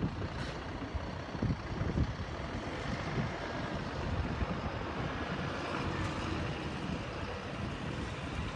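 Single-deck bus engine running as the bus pulls away and drives off, heard as a steady rumble with uneven low thumps through it.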